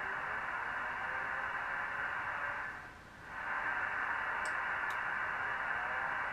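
Elecraft KX3 transceiver's receiver audio on the 40-metre band: steady band noise and static hiss through its loudspeakers. It fades almost away about three seconds in as the AF gain is turned down, then comes back as it is turned up again, with two faint clicks a little later.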